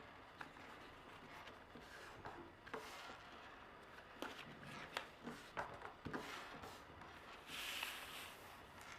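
Sheets of origami paper being folded and creased by hand: scattered soft crinkles and taps, and a longer rustle about eight seconds in.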